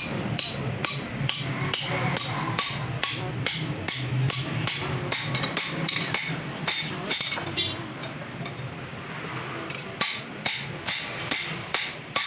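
Hammer blows on a chisel cutting through a steel truck leaf spring: a steady run of sharp metal strikes, about two to three a second, that stops for about two seconds and then resumes.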